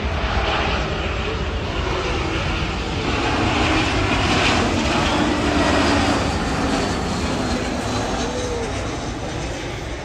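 Twin-engine jet airliner passing low on final approach, its engine roar swelling to a peak about halfway through and then fading as it heads for the runway.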